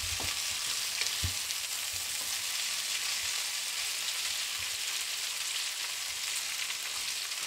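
Red pepper strips sizzling steadily in oil in a frying pan as they are stirred with a wooden spoon, with a couple of short soft knocks in the first second or so.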